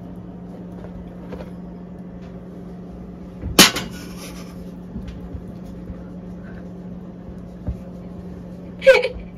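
Flour being stirred into batter with a silicone spatula in a bowl, faint scraping over a steady low hum. One sharp knock about three and a half seconds in, and a brief louder sound near the end.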